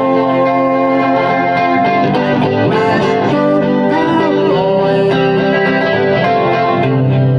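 Background music led by a guitar playing a sustained melody with bending notes.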